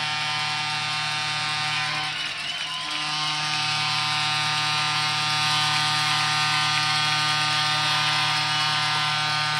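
Hockey arena goal celebration over the PA after a home goal: long, steady horn-like tones that shift in pitch about two and a half seconds in.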